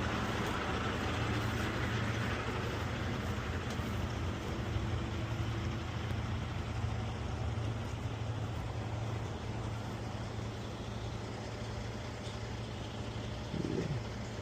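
Truck engine idling steadily, with a brief falling whine near the end.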